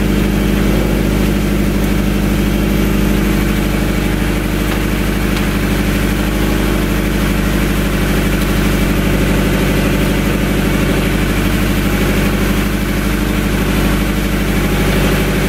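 Scion FR-S flat-four engine idling steadily through a straight-piped exhaust with no catalytic converters or resonators.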